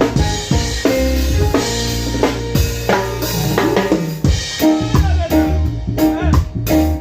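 Reggae music: a drum kit with bass drum and snare strikes over a bass line and sustained pitched notes from other instruments, at a steady level.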